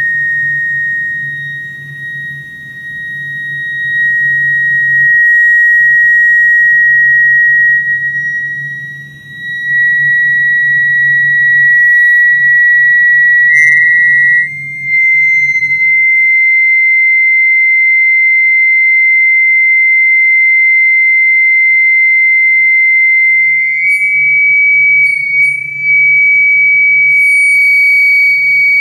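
A steady, high-pitched electronic test tone that slowly steps upward in pitch, as used to drive cymatics patterns, over a low hum that drops out for several seconds in the middle.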